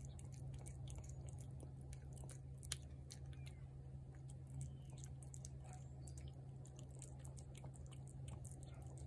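A cat eating wet food from a plate: quick, faint, wet chewing and smacking clicks, irregularly spaced, over a steady low hum.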